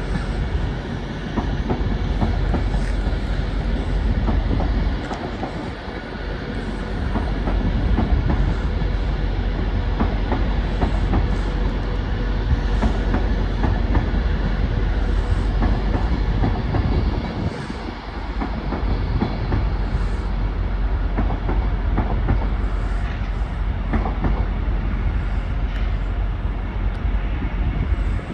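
A train running through the station, with a steady heavy rumble and its wheels clicking repeatedly over rail joints.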